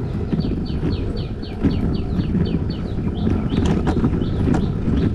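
A bird calling a quick series of short, falling notes, about four a second for a couple of seconds, then a few more scattered notes, over steady wind rumble on the microphone.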